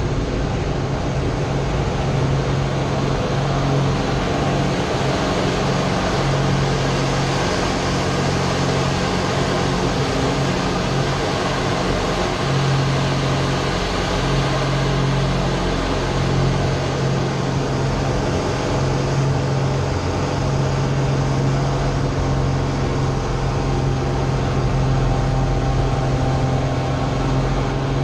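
Slick 540 aerobatic monoplane's Lycoming six-cylinder engine and propeller, heard from inside the cockpit: a loud, steady drone with a low hum that swells and fades several times as the aircraft manoeuvres.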